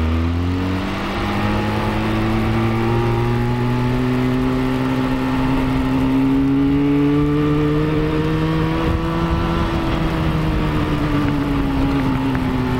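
Motorcycle engine under way, its pitch climbing over the first second as the bike accelerates, then rising slowly and easing off a little near the end, with wind noise buffeting the microphone.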